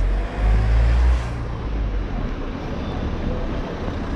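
Street traffic noise, a steady wash of sound with a loud, deep rumble for about a second near the start.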